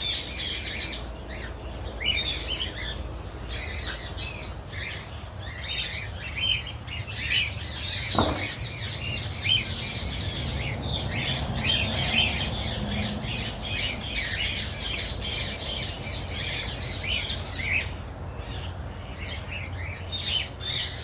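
Many birds chirping and calling at once, a dense, continuous chorus of short high chirps with some harsher squawks, over a steady low rumble. A single short knock about eight seconds in.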